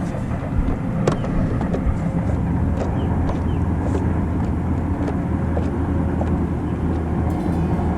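An engine running steadily, a low even drone, with a few light clicks over it.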